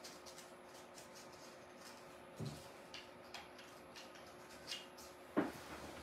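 Quiet handling of artificial flower stems and paper on a tabletop: scattered soft clicks and rustles, a duller knock about two and a half seconds in and a sharper knock near the end. A faint steady hum runs underneath.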